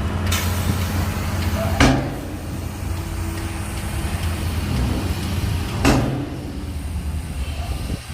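A bulldozer's diesel engine runs steadily under load. Two loud clanks come about four seconds apart, the first about two seconds in and the second near six seconds.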